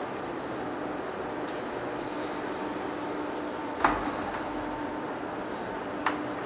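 Heavy face lathe running: a steady machine hum with a constant tone, broken by two sharp knocks, the first about four seconds in and the second about two seconds later.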